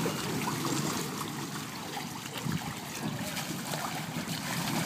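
Steady noisy wash of wind on the microphone mixed with water sloshing and lapping as water-walking balls move about the shallow pool, with a few faint knocks.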